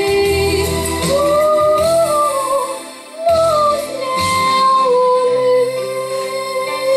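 A girl singing long held notes into a handheld microphone over a recorded backing track; the music dips briefly about three seconds in.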